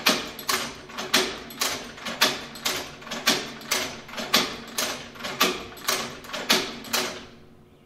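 Hand-operated leather sewing machine clacking with each stitch: a sharp strike about every half second, each with a lighter click just before it. The stitching stops near the end.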